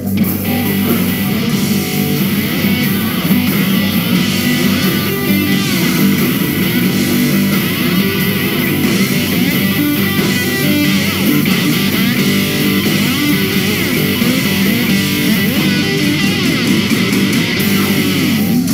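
Loud rock music led by electric guitar, with bass and drums, playing without a break.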